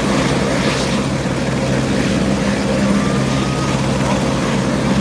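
Medical helicopter running on the ground before lift-off: a steady turbine whine over the fast, even low beat of the rotor blades.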